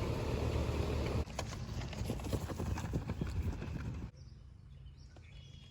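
A low steady hum that cuts off about a second in, then a quick run of light taps and knocks that stops abruptly near four seconds, leaving only faint scattered taps.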